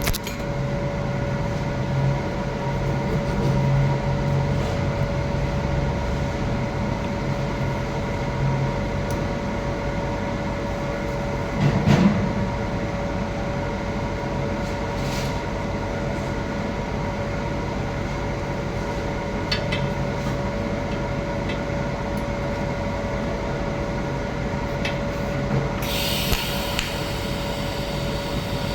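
Arc welding a pipe root pass: a steady hum and crackle from the welding arc and machine, with a single knock about twelve seconds in and a brighter hiss joining near the end.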